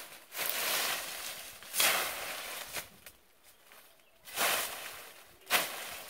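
Clearing brush around a spiny muta plant by hand and blade: about five irregular swishing, rustling blows into its stiff leaves and the dry leaf litter, the sharpest one near the end.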